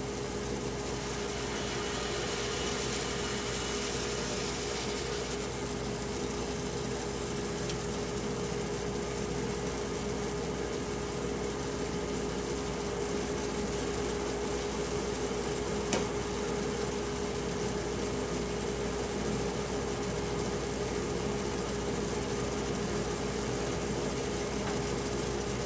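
A machine running steadily with a constant hum and no change in speed, and one faint click about sixteen seconds in.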